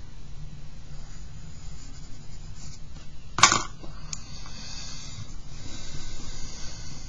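A pencil set down with a sharp click on the cutting mat about three and a half seconds in, then a white eraser rubbing over charcoal-covered paper with a soft, high, scratchy rasp that runs on to the end.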